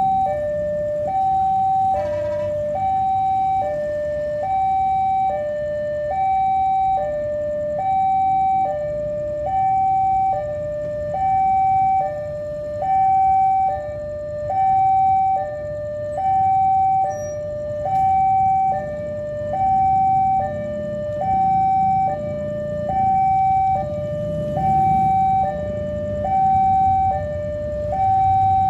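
Railway level-crossing warning alarm sounding continuously: an electronic two-tone signal alternating high and low, about one pair a second, over a steady low rumble.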